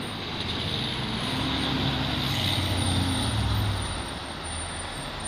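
A fire engine's engine running as the truck drives past on the street, with road and tyre noise. It builds to its loudest between about two and four seconds in, then eases off as it goes by.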